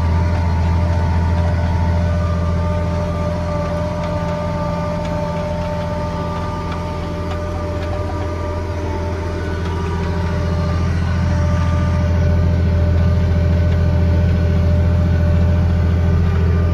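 Case IH tractor's diesel engine running steadily while pulling a planter through the field, heard from inside the cab: a deep, even drone with a steady whine on top.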